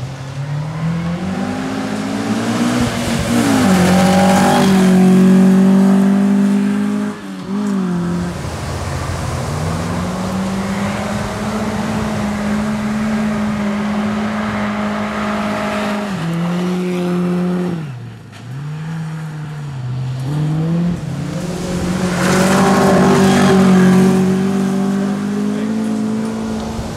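Renault 8 Gordini rally cars' rear-mounted four-cylinder engines revving hard on gravel stage runs, the pitch climbing and falling again and again through gear changes. The engines are loudest about five seconds in and again near the end, as cars pass close.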